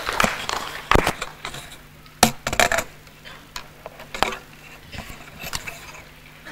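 The tail of applause fading out at the start, then scattered short knocks, taps and clinks of a laptop and its cables being handled at a lectern, over a faint steady low hum.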